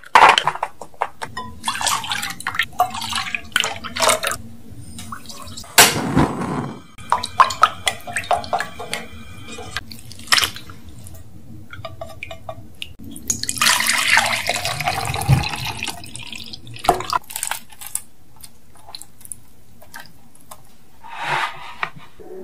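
Kitchen preparation sounds: a string of small clicks and taps as honeyed red beans are spread over a cling-film-lined metal tray, then a wooden spoon stirring milk and gelatin in a pot, with a stretch of splashing liquid about halfway through.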